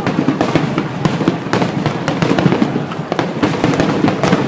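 Fireworks display going off: a rapid, dense run of sharp bangs and crackles, several a second, over a continuous low rumble.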